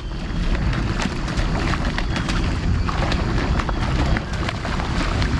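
Wind rumbling on the microphone over water lapping and splashing around a kayak, with many small splashes and drips clicking throughout.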